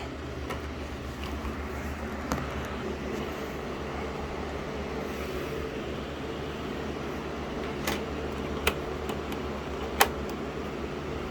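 Steady fan-like hum, with a few sharp clicks of computer parts being handled, the loudest two near the end.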